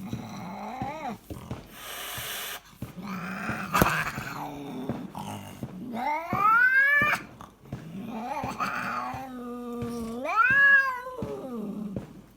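A cat snoring and moaning: noisy snoring breaths mixed with drawn-out, meow-like wails that rise and fall in pitch, the two loudest in the second half.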